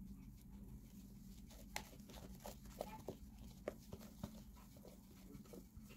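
Faint scattered clicks and soft taps over a low steady hum, from a bowl and crinkling baking paper as thick sponge cake batter is poured into a paper-lined cake pan.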